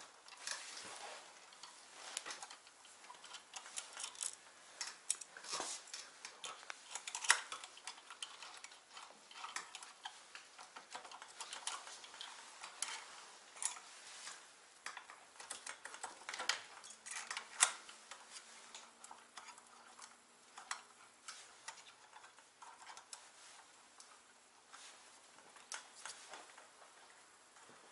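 Irregular small metallic clicks, ticks and scrapes from a hand driver and bolt being worked into a metal steering-damper bracket as a 5 mm bolt is fixed in place.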